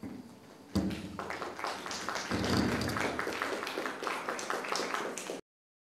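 Audience applauding, starting suddenly about a second in and cutting off abruptly near the end.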